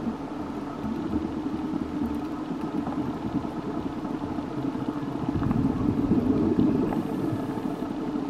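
Steady low underwater rumble, picked up through the camera's housing, swelling for a couple of seconds about five seconds in.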